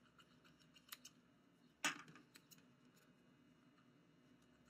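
Scissors snipping through a sheet of rolled pie dough: a few faint clicks of the blades, with one louder snip a little under two seconds in.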